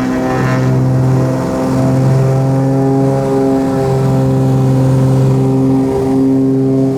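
Cessna 340A's twin turbocharged TSIO-520 piston engines and propellers running steadily, a loud even drone with a slow rhythmic beat as the two engines drift in and out of step.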